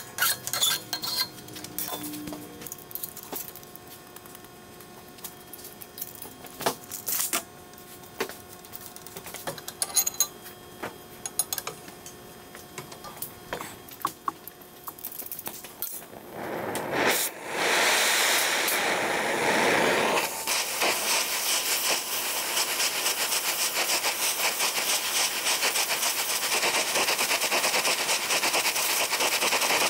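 Scattered clicks and knocks of steel being handled for the first half. About halfway through, an oxy-fuel torch flame starts up, shifts for a few seconds as it is adjusted, then holds a steady loud hiss while it heats a flat steel bar clamped in a vise.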